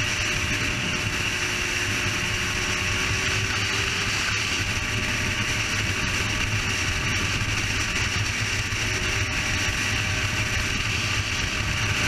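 Sport motorcycle cruising steadily at highway speed: an even rush of wind noise with the engine's low hum underneath.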